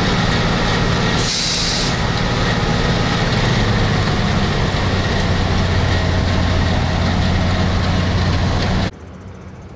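Heavy vehicle engine running steadily, with a short hiss a little over a second in. The sound cuts off abruptly near the end, leaving a quieter background.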